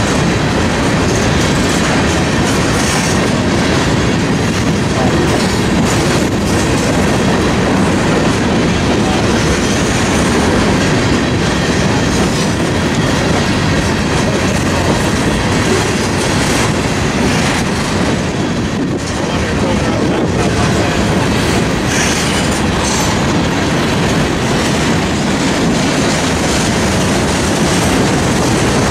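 Freight train of covered hopper cars rolling past close by: a loud, steady rumble and clatter of steel wheels on the rails, with occasional clicks.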